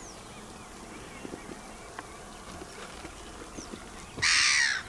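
Footsteps walking through a boggy marsh, with faint bird chirps behind them. Near the end comes a loud, harsh bird call lasting about half a second.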